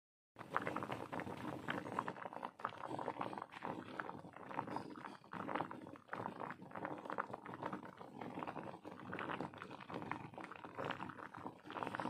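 A pot of carrot, potato and chicken pieces boiling hard in water, a dense irregular bubbling and popping that starts about half a second in; the pieces are being boiled until soft enough to blend.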